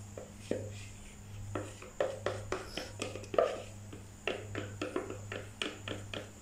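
Plastic spatula scraping and tapping against the inside of a plastic cup: an irregular run of light clicks and scrapes, busier from about two seconds in, as the last thick soap batter is scraped out into the mold. A low steady hum runs underneath.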